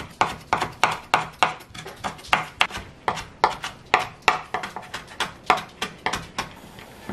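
Chef's knife finely mincing lemon peel on a wooden cutting board: steady chops, about three a second, stopping near the end.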